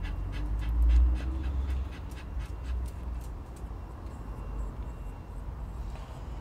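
Chihuahua panting fast with its tongue out, about four breaths a second, the breaths growing faint after about three and a half seconds. A low rumble on the microphone is loudest about a second in.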